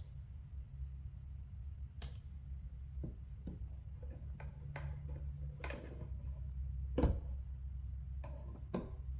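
Plastic trim removal tool prying at a car's side-mirror glass and housing: scattered sharp clicks and taps, with one louder snap about seven seconds in, over a steady low hum.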